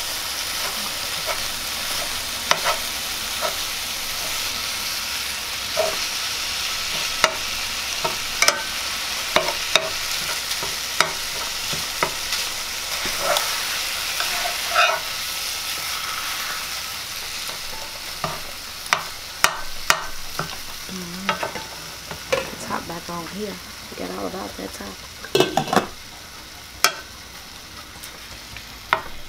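Ground beef and Italian sausage sizzling in an electric skillet while a metal fork chops and turns the meat, with frequent sharp clicks and scrapes of the fork against the pan. The sizzle grows quieter over the last several seconds.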